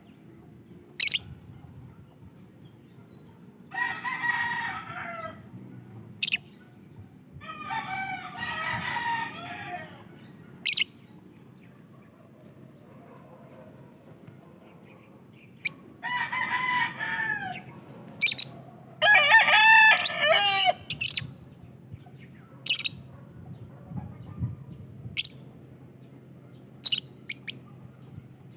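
Lovebirds calling: short, shrill chirps scattered throughout, and four longer drawn-out calls of about two seconds each, the last of them the loudest.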